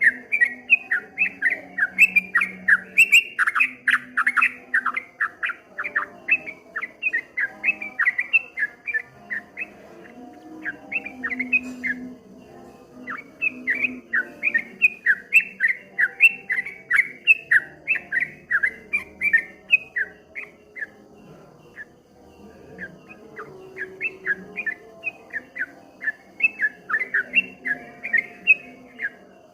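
Yellow-vented bulbul (trucukan) singing a rapid, chattering run of quick repeated notes in long phrases, the fast 'ropel' delivery that keepers prize. It eases off briefly about ten seconds in and again around twenty-two seconds, then resumes.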